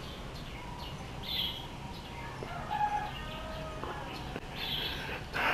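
A rooster crowing once, faintly, around the middle, with small birds chirping a few times. A short, louder rush of noise comes near the end.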